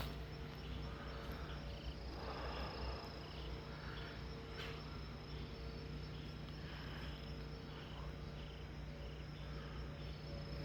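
Insects calling in a steady high trill, with softer calls repeating about once a second.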